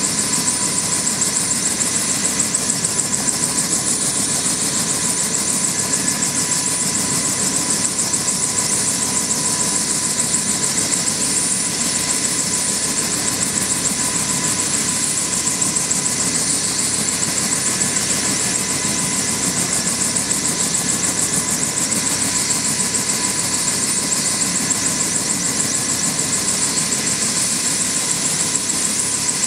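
Bell UH-1 Huey helicopter running on the ground: the steady high whine of its T53-K-13B turboshaft engine over several steady tones, with the two-blade main rotor turning in a fast, even beat.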